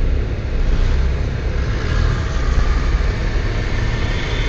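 Steady low rumble inside a car's cabin, its engine running as the car creeps forward in a stop-and-go traffic jam.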